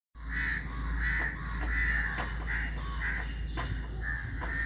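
Crows cawing repeatedly, short harsh calls following one another about every half second to a second, over a steady low rumble.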